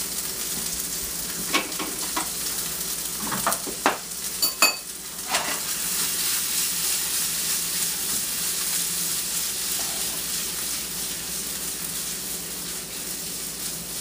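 Gnocchi and chopped bacon sizzling in butter in a hot skillet, with a few sharp knocks in the first five seconds, then a steady sizzle as the pan is tossed.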